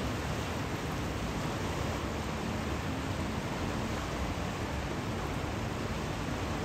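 Floodwater rushing steadily down a swollen river running high after heavy storms, a constant even rush of fast water.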